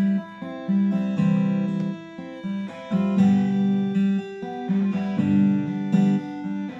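Guitar-led instrumental music played through a passive bookshelf speaker from an Ashton AT1000S set, driven by a small Bluetooth amplifier as a sound test of the converted speaker.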